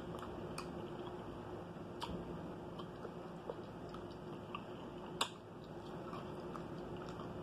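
Quiet chewing and the wet squish of fingers tearing apart sauce-covered turkey tail meat. Scattered faint clicks, with one sharper click a little past five seconds in.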